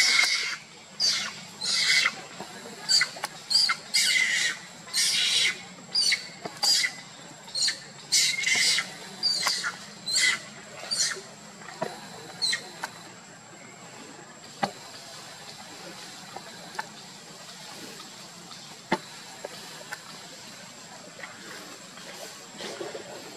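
Female long-tailed macaque screaming: a string of short, shrill, loud cries about one a second that break off about halfway through. These are the cries of a monkey being threatened and chased by another macaque. A faint steady high tone runs underneath.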